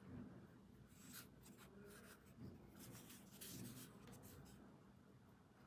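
Faint scratchy rubbing of fingers and nails on a small toy soap bar as it is turned over in the hands, in a few short stretches.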